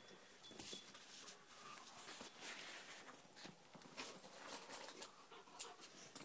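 Faint scuffling of two dogs wrestling on a hard floor: scattered clicks and scrapes of claws and paws.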